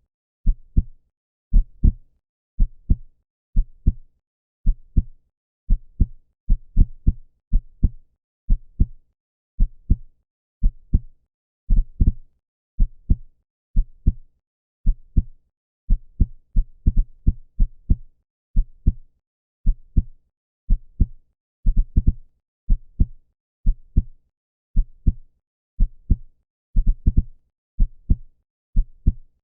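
Human heartbeat, a normal heart sound: a steady, even run of paired low thumps, lub-dub, beat after beat.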